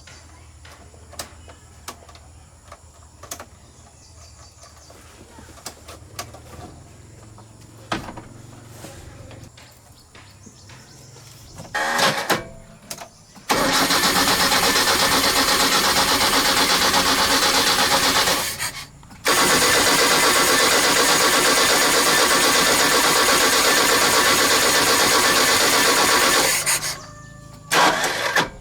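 An engine is started and run loudly in stretches: faint clicks and taps at first, a short burst of cranking, then the engine running, cutting out twice and starting again.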